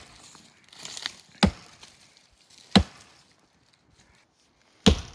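A felling axe chopping into wood: three heavy strikes about a second and a half to two seconds apart.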